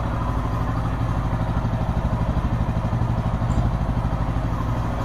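Bajaj Pulsar N160's single-cylinder engine idling steadily, with an even, fast pulse.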